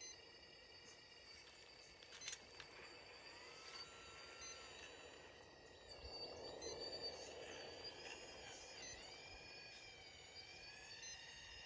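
Faint high whine of a remote-control Volvo model excavator's motors, wavering up and down in pitch as the boom lifts and swings, with a single sharp click a couple of seconds in.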